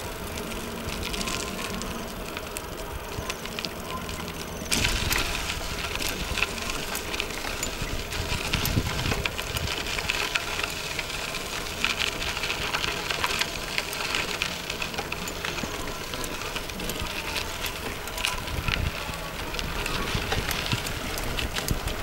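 Mountain bike rolling along a rough dirt-and-gravel track: tyre crunch and many small rattling clicks from the bike over a steady rushing noise, louder from about five seconds in.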